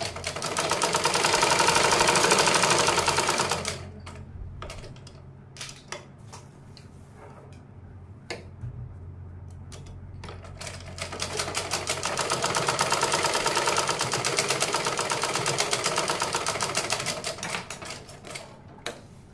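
Usha sewing machine stitching a border strip onto a heavy woven chador in two runs of rapid, even clatter. The first run lasts a few seconds; the second, longer one starts about ten seconds in. Between them come a few faint clicks as the cloth is handled.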